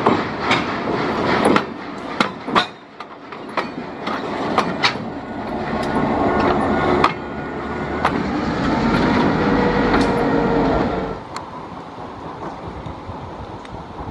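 Open excursion cars of a passenger train rolling past at close range, wheels clicking sharply over rail joints. A diesel locomotive then passes, its engine running with a steady whine, and the sound drops away about eleven seconds in.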